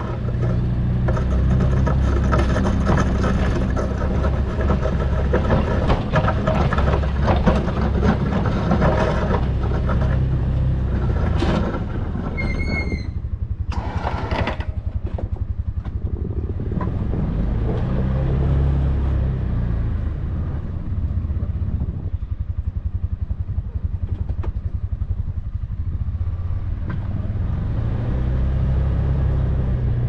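Can-Am Defender HD7's single-cylinder engine running in four-low as the front steel plow pushes snow, its pitch rising and falling a few times. The blade scrapes through snow for roughly the first dozen seconds, and a short high chirp sounds about thirteen seconds in.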